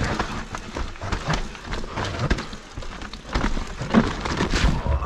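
Mountain bike rattling and clattering down a dirt trail: tyres rumbling over dirt with many sharp knocks as the wheels hit roots and stones.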